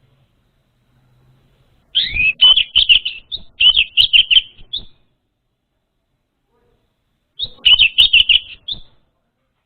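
Orange-headed thrush (anis merah) singing: two phrases of quick, clear whistled notes. The first starts about two seconds in and lasts about three seconds; the second, shorter one comes near the end.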